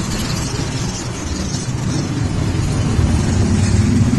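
Many motorcycle engines running as a large group of bikes rides past, a steady low engine sound that grows louder near the end.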